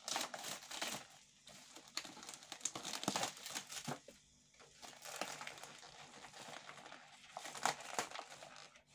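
Plastic shrink-wrap around a tray of eggs crinkling irregularly as hands pull it open, with short pauses a little over a second in and about four seconds in.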